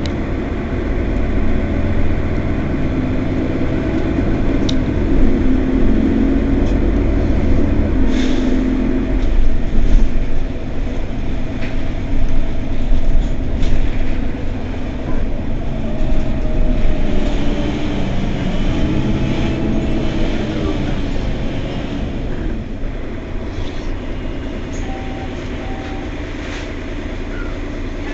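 Mercedes-Benz Citaro facelift city bus in service, its engine pulling up in pitch twice as it accelerates and then easing off, over the steady rumble of the ride. There are a few clicks and two short beeps near the end.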